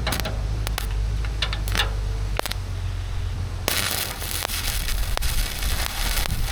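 Welding arc crackling and hissing, striking up abruptly about halfway through and running steadily as a seam is laid, over a steady low rumble; a few sharp metallic clicks come before it.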